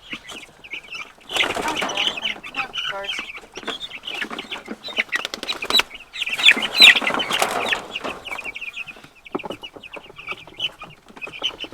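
A flock of young meat chickens peeping and cheeping constantly, with many short high calls overlapping. There are two louder stretches of rustling and scuffling, starting about a second in and again around six seconds in.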